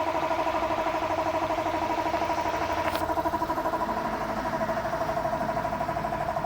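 A motor-driven machine running steadily with a fast, even pulse, and a single sharp click about three seconds in.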